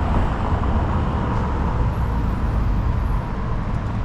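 Steady city street traffic noise with a low rumble.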